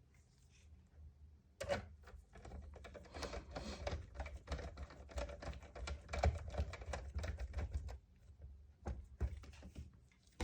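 Rapid, irregular clicking and rattling of a screw being driven into a PlayStation 3's chassis with a screwdriver. It starts about one and a half seconds in and stops near eight seconds, with a few more clicks just before the end.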